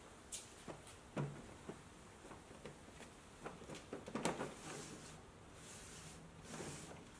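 A plastic Stanley Sortmaster organizer box being handled and slid onto wooden rails in a plywood rack: several light knocks, then a scraping slide about four seconds in and again near the end.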